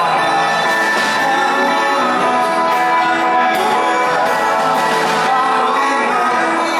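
Live pop band music with singing, steady and full throughout.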